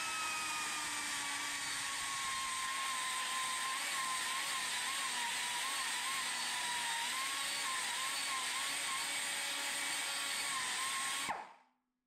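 Pneumatic die grinder spinning at high speed, cutting the cast-iron valve pocket of a big-block Chevy oval-port head: a steady high whine over a hiss of air and metal, its pitch dipping and wobbling as the bit bites. It stops suddenly near the end.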